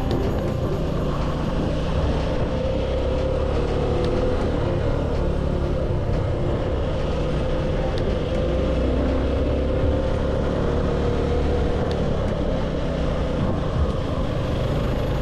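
Motorcycle engine running steadily at an even pitch while riding.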